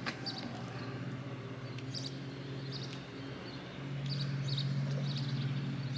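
Birds chirping in short high calls every second or so, over a steady low hum that grows louder for the last couple of seconds.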